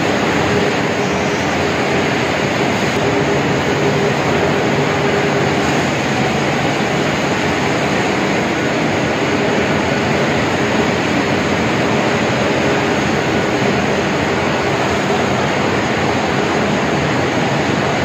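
Steady machinery noise of a poultry slaughter line: overhead shackle conveyor running with a constant hiss and rumble and a faint steady hum underneath.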